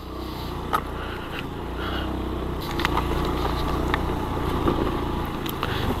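Suzuki Access 125 scooter's single-cylinder engine running under way on a rough off-road track, with a few short knocks from bumps along the way.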